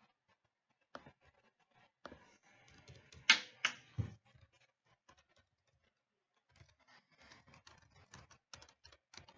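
Typing on a computer keyboard: light scattered keystrokes, with two sharper clacks and a dull thump about three to four seconds in, a short pause, then more light tapping.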